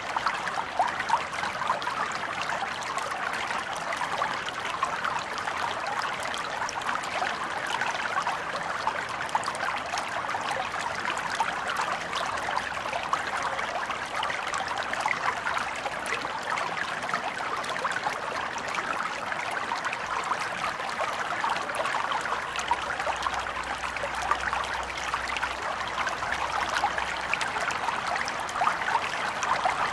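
A small stream flowing and trickling steadily, with a busy bubbling and splashing over stones centred in the mid and upper range and no deep rumble.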